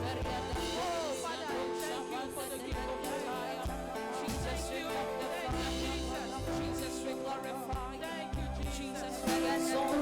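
Live gospel worship music: sustained chords over low bass notes that change every second or so, with a voice gliding up and down in pitch over them.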